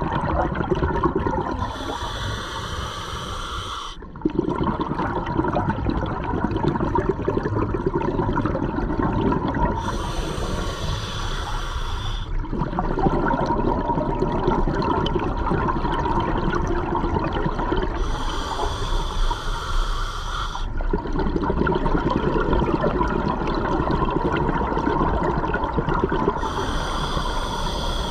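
Scuba diver breathing through a regulator, heard underwater: a hissing inhale about every eight seconds, four in all, each followed by a long bubbling exhale.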